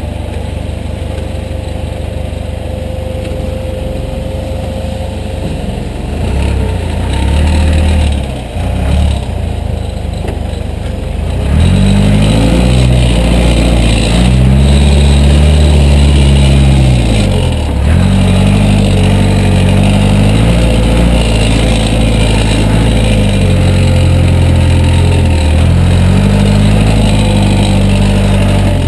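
Backhoe's diesel engine running, then from about twelve seconds in revving up and working hard under load in three long surges, its pitch dropping briefly between them. A thin steady whine sits over the engine throughout.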